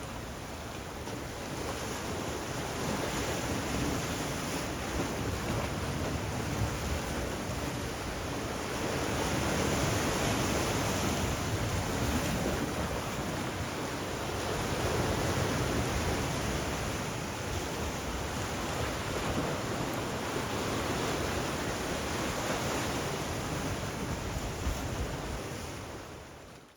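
Calm sea with small waves washing in a steady hiss, swelling and easing every few seconds, fading out at the very end.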